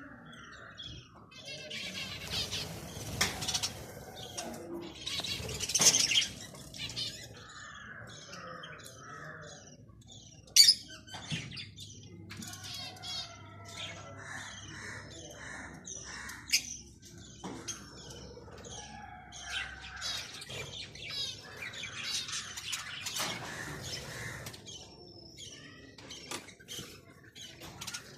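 Budgies chirping and twittering in a cage, many short calls scattered throughout, with a few brief flurries of wing flapping and one sharp click about ten seconds in.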